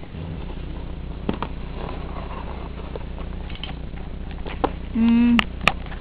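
Scattered light clicks and knocks of plastic Lego pieces being handled on a tabletop, over a steady low hum. About five seconds in comes a short, loud, steady hooting tone lasting under half a second.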